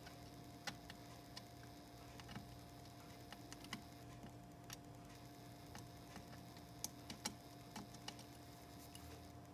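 Faint steady test tone from a QRP-Labs QCX+ transceiver during its phase alignment, with scattered light clicks as a plastic alignment tool works a trimmer on the circuit board; a few clicks come close together about seven seconds in.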